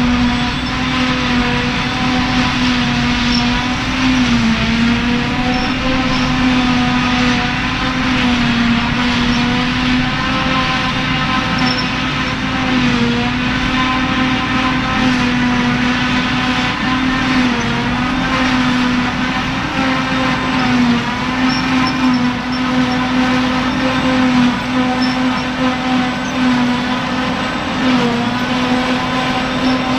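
CLAAS Jaguar 940 forage harvester running under load while chopping grass: a loud, steady whine with its pitch dipping briefly a few times.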